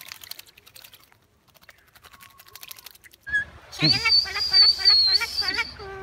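A bird calling: faint clicks, then a high wavering whistle held for about two seconds over a run of quick repeated chattering notes.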